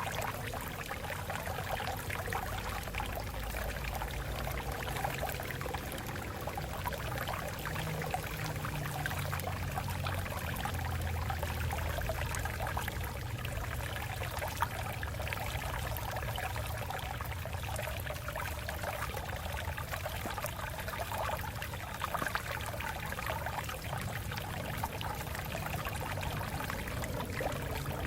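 A shallow stream flowing steadily over rocks, a continuous splashing and trickling with a low rumble beneath.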